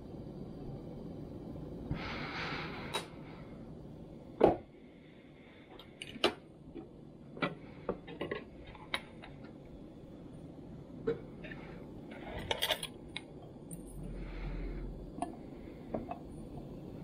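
Kitchen utensils being handled on a countertop: one sharp knock about four and a half seconds in, then scattered clicks and clinks of a steel knife and fork against a bamboo cutting board and a frying pan.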